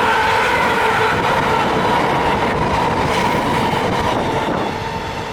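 Container freight train running through the station, its wagons rolling heavily over the rails with a steady whine, getting quieter near the end as it goes by.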